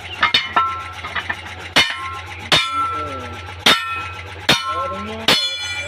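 A hammer strikes the steel rim and split lock ring of a truck wheel, seating the ring in place. About seven irregular metallic clangs in under six seconds, each ringing briefly.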